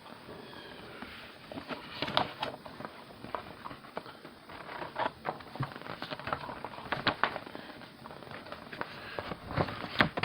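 Board-game pieces (cards and cardboard) being handled on a table: irregular light clicks, taps and rustles.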